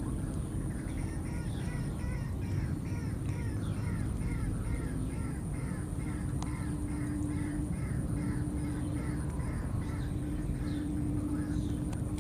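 An animal calling in a fast run of short repeated notes, about three a second, over a steady low rushing noise.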